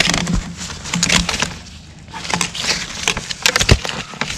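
Nylon tent fabric rustling and crinkling, with scattered sharp clicks and knocks, as a flexible ribbed heater duct and power cables are handled and pushed through a fabric door.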